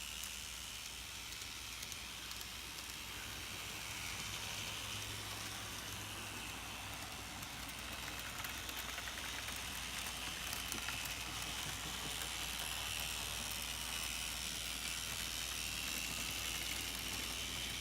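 Modemo N scale Tokyu Deha 300 model tram running on KATO UNITRAM street track: a faint, steady high whine and hiss that drifts slowly in pitch, with a few light clicks.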